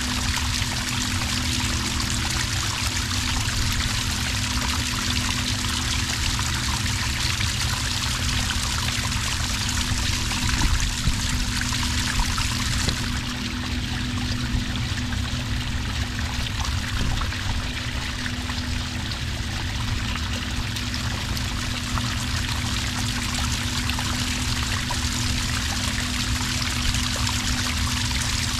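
Small cascade of water pouring steadily onto sand, an even splashing trickle with no pauses.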